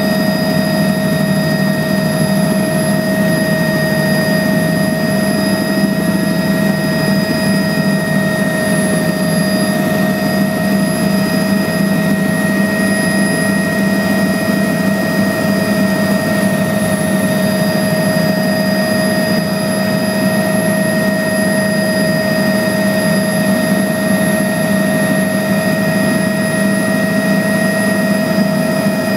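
Steady drone of a small aircraft's engine and rotor or propeller heard from inside the cabin in level flight, with a deep hum and several high steady whines running unchanged.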